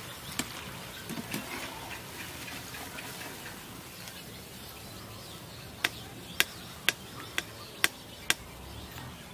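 Hot frying oil sizzling softly in a pan as fried potato snacks are lifted out with a wire spider skimmer. Later, six sharp taps about half a second apart: the skimmer knocked to shake off oil.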